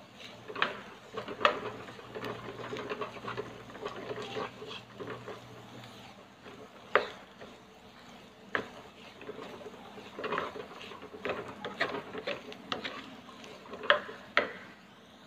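Wooden spatula stirring and scraping diced vegetables and egg around a nonstick frying pan, with irregular knocks of the spatula against the pan, the sharpest about half a second, a second and a half, seven seconds and fourteen seconds in.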